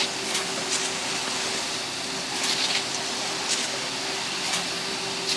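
Construction machinery running steadily: a constant hum over a noisy drone, with short sharp hisses coming every second or so at an uneven pace.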